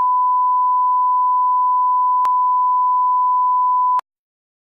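A steady 1 kHz sine test tone, the line-up reference tone at the head of a broadcast tape, with a faint click about two seconds in; it cuts off sharply about four seconds in.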